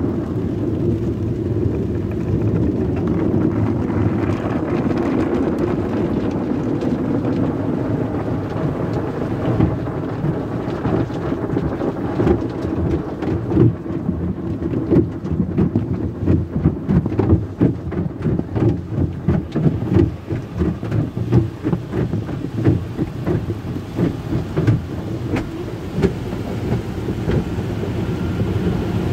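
Automatic tunnel car wash heard from inside the car: a steady rush of water and foam spraying over the body and windows. From about twelve seconds in, a run of irregular thumps against the car breaks through, then the rush settles again near the end.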